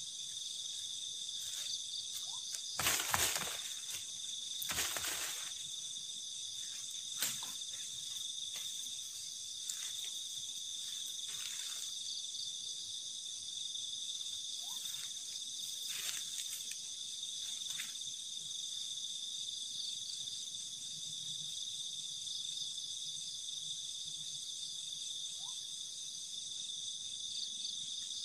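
A chorus of night insects chirring steadily in high, even tones throughout. A few short noises break in, the loudest about three and five seconds in.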